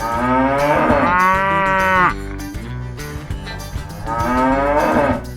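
A cow mooing twice: a long moo of about two seconds, then a shorter one about four seconds in, over background music.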